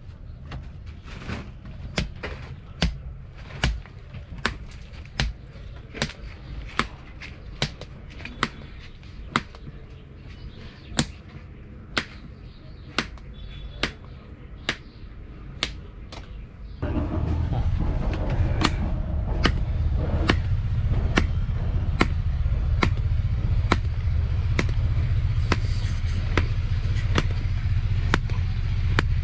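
A steady series of sharp knocks, a little more than one a second. About two-thirds of the way through, a low engine rumble comes in and runs under them.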